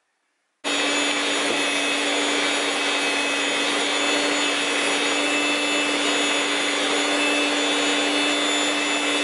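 Electric stand mixer running steadily, beating buttercream: a constant motor hum with a high whine over the churning. It starts abruptly about half a second in.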